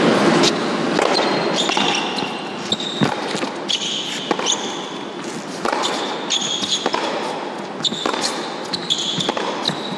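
Tennis rally on an indoor hard court: sharp racket strikes and ball bounces at irregular intervals, with short high-pitched shoe squeaks on the court surface, over a steady arena background.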